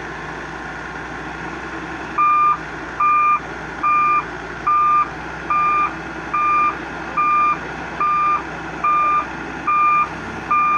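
A heavy machine's reversing or travel alarm beeping at an even pace, about one beep every 0.8 seconds, starting about two seconds in, over the steady running of an engine.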